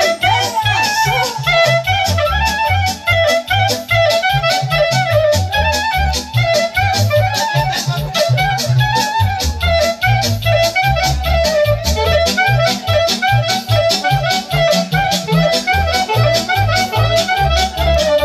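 Clarinet playing a fast, ornamented instrumental melody over a backing accompaniment with a steady quick beat and pulsing bass.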